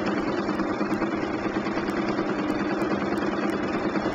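Bernina 1260 sewing machine running steadily at an even speed, its needle stitching free-motion quilting through the layers of a quilt.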